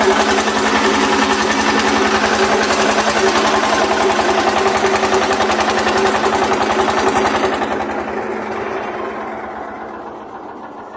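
A boat's engine running steadily and loudly, with a rushing hiss over it. It gradually fades away over the last three seconds or so.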